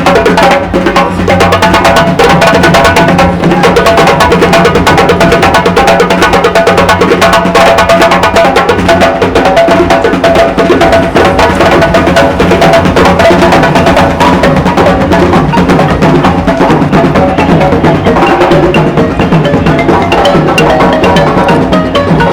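Music with busy percussion: a fast, steady run of woody clicks over held tones.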